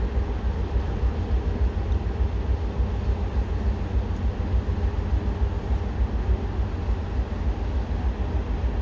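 Small diesel shunter's engine running steadily, with wind buffeting the microphone.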